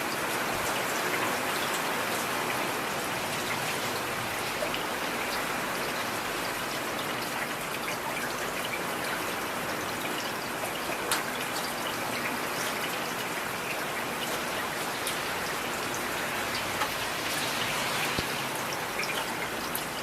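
Steady heavy rain falling, with individual drops ticking sharply here and there over the even hiss.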